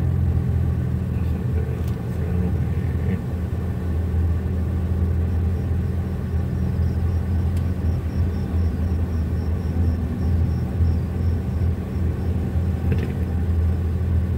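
Steady low engine and road drone inside the cabin of an ambulance driving along a paved road, even in level throughout.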